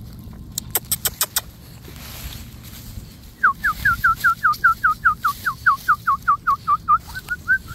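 A squeaky dog toy being chewed: about twenty short squeaks, roughly five a second, each dropping in pitch, starting about three and a half seconds in. A quick run of five clicks comes about a second in.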